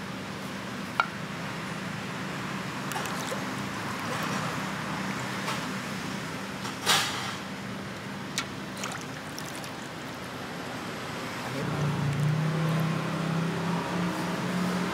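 Street traffic: a steady engine hum under a noisy background, a short sharp hiss about seven seconds in, and a heavier engine getting louder over the last few seconds.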